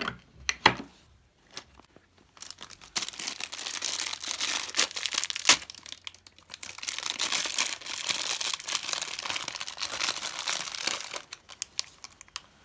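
A mini collectible's blind-pack wrapper crinkling and tearing as it is opened by hand. It makes a dense, continuous crackle for most of the stretch, with a few sharp clicks, the loudest about five seconds in.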